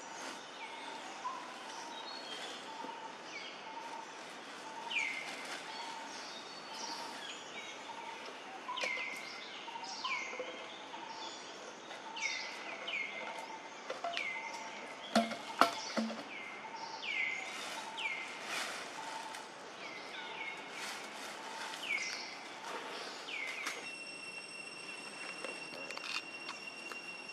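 Wild birds calling over and over, mostly short chirps that drop sharply in pitch. Two sharp knocks come about halfway through. Near the end a steady high whine starts suddenly.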